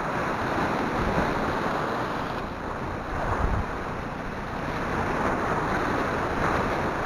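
Sea surf surging and breaking over the rocks just below, a continuous wash of foaming water, with wind buffeting the microphone in a few low thumps.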